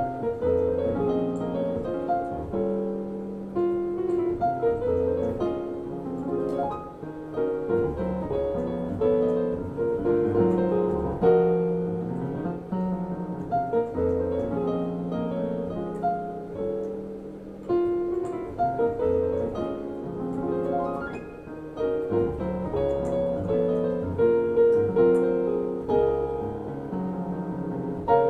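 Solo grand piano playing a jazz standard: bass notes and chords in the left hand under a moving melody line in the right.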